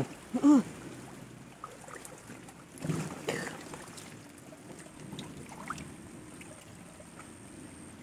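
Shallow paddy water sloshing and splashing as people wade and grope for fish by hand, with a louder splash about three seconds in. A short shout comes about half a second in.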